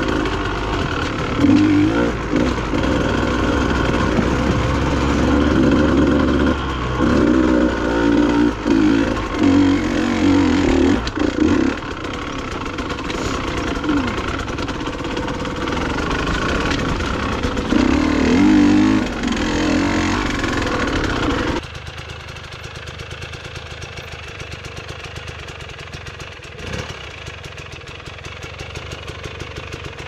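Dirt bike engine running and revving in repeated swells as the bike is ridden over a rocky trail, heard from on the bike. About two-thirds of the way through it cuts suddenly to a quieter engine sound with a fast, even pulse.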